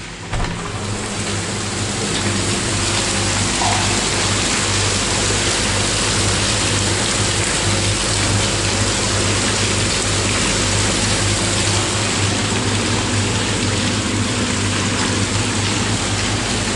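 Heavy downpour from a cloudburst: rain pouring and splashing in a loud, steady rush that sets in sharply about half a second in. Background music with low sustained notes plays underneath.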